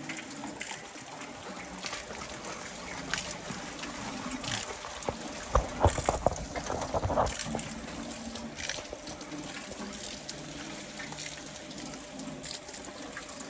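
Water splashing and trickling off a turning water wheel, with a short run of louder splashes and knocks about halfway through.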